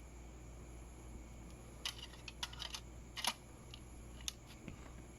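A CD case and its disc being handled: about half a dozen short, sharp clicks and taps, the loudest about three seconds in.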